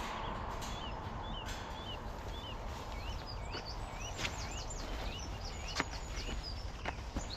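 A bird chirping, a long run of short, hooked calls about twice a second, over a steady low outdoor rumble, with a few sharp clicks.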